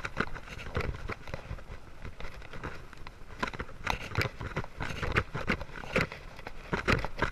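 Bicycle riding over a concrete street: irregular rattling clicks and knocks from the bike over the rough pavement, over a steady low rumble of tyres and air.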